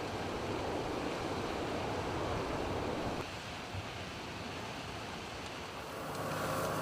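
Steady rushing wind noise that drops abruptly about three seconds in, then swells again near the end with a low steady hum joining it.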